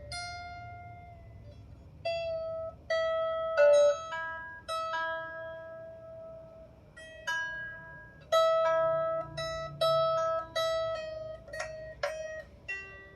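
Strings of a 16-string lyre harp plucked one at a time during a rough tuning. One middle note is plucked again and again, with a few neighbouring strings in between, starting about two seconds in and coming roughly once a second, each note ringing on as it fades.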